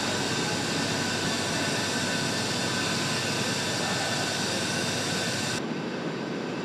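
Steady machinery and ventilation noise of an aircraft assembly hall: a dense hiss with a few faint steady hums. Its higher part drops away abruptly about five and a half seconds in.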